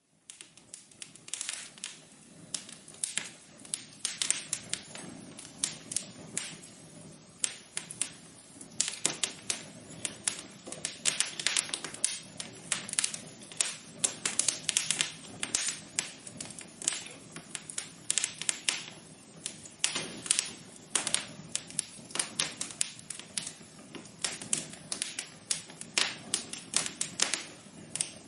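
Wood fire crackling in a fireplace: dense, irregular pops and snaps over a soft hiss. It starts suddenly.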